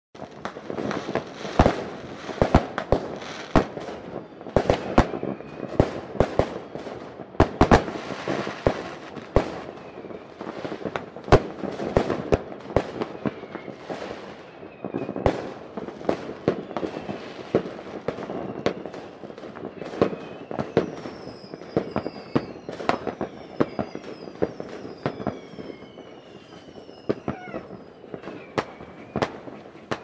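Fireworks going off: a dense run of sharp bangs and crackles, loudest in the first half, with several high whistles falling in pitch in the second half.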